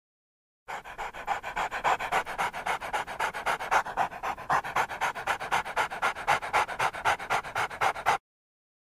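German Shepherd dog panting with its mouth open: a quick, even run of short breaths, several a second, that starts about a second in and cuts off suddenly near the end.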